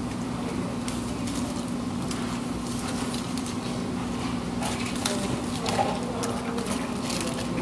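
Close-up eating sounds: aluminium foil crinkling and a fork scraping food off it, with short sharp clicks and crackles that come thickest in the second half. A steady low hum runs underneath.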